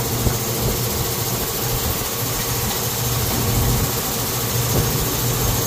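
Steady mechanical hum with a constant low drone, like an engine or machine running without change.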